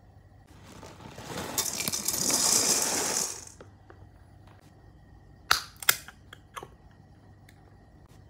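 Dry star-shaped Honey Stars cereal poured from its foil-lined bag into a plastic bowl, rattling for about three seconds. A few sharp clicks follow about two seconds later.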